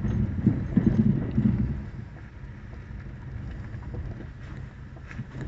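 Low rumble of a car rolling slowly over a dirt and gravel track, heard from inside the cabin. It is louder and uneven for the first couple of seconds, then settles to a quieter, steady rumble with a few faint clicks.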